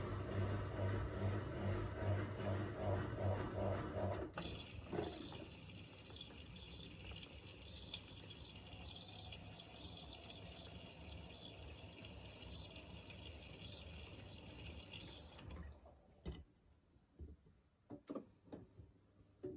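Miele Navitronic W3985 washing machine at the start of its programme, taking in water: a low hum for the first few seconds, then a steady hiss of water flowing in that stops suddenly about three-quarters of the way through, followed by a few separate clicks and knocks.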